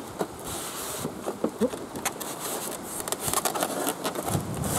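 Cardboard box sleeve being slid off a polystyrene packing tray: rustling and scraping of cardboard against polystyrene, with a few short squeaks about a second and a half in. A low rumble comes in near the end.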